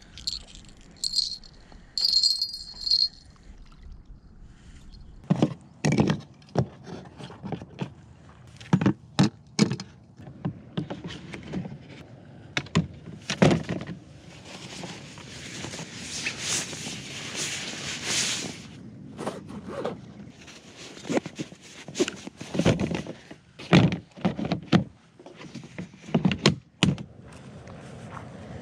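Something being hammered into the ground: a run of irregular thunking strikes, some in quick succession, with pauses between. It opens with a brief metallic clinking and has a few seconds of scraping near the middle.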